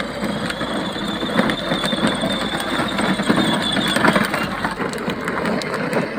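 Battery-powered ride-on toy car's electric drive motors and gearbox running, with a steady high whine that stops about four seconds in, over a rattling mechanical noise.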